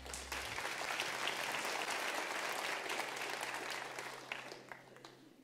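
Congregation applauding at the end of an acoustic guitar song, the song's last low note dying away about half a second in. The clapping thins out near the end.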